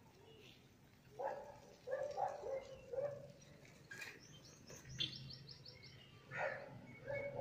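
Outdoor ambience of birds chirping, with a rapid run of high chirps about five seconds in. Several louder, lower calls come between one and three seconds in and again near the end.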